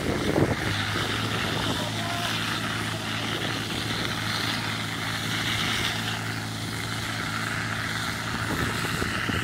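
Portable fire pump engine running steadily at a constant pitch.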